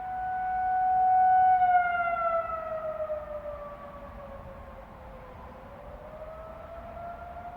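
Outdoor tornado warning siren sounding during its monthly test. It holds a steady wail that swells to its loudest about a second and a half in, then slides down in pitch and fades, before rising again near the end.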